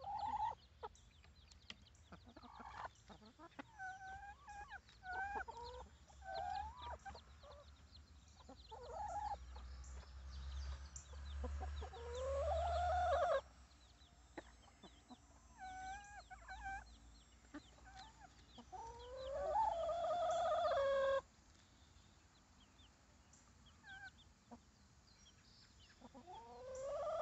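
Chickens clucking in short two-note clucks, with three long drawn-out calls that rise in pitch, hold for a couple of seconds and cut off sharply.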